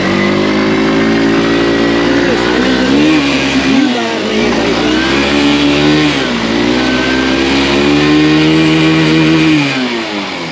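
Hero Xtreme 160R's single-cylinder engine revved hard in long held bursts, its pitch dipping and climbing again about four times, while the rear wheel spins in deep river water and throws up splashing spray as the bike is worked out of the water.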